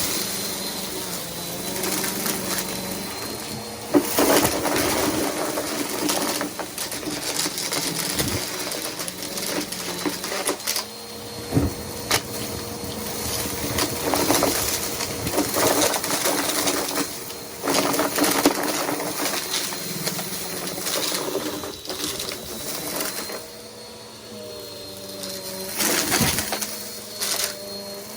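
Bissell PowerForce Helix upright vacuum cleaner running steadily with a high whine, with scattered knocks and clatter.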